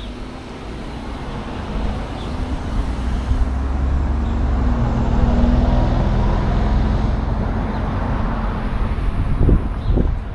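Road traffic: a motor vehicle passing close, its engine hum swelling to a peak about halfway through. Two sharp low thumps near the end.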